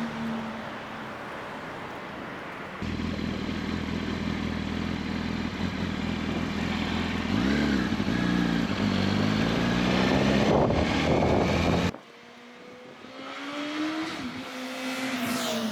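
2007 Yamaha R1's inline-four engine on its stock exhaust, in short clips of the bike running and accelerating. In the middle clip the pitch drops and climbs again about eight seconds in, as at a gear change, then rises steadily. Near the end the pitch falls as the bike passes.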